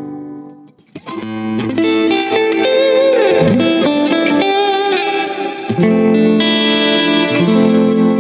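Fender American Ultra Luxe Vintage electric guitar played through an amplifier: a ringing chord dies away, then from about a second in it plays chords and a lead line with string bends.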